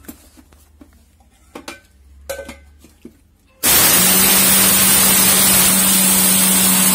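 A few light knocks, then about three and a half seconds in a 750-watt electric mixer grinder switches on and runs loud and steady with a low hum, its steel jar grinding roasted urad and moong dal into powder.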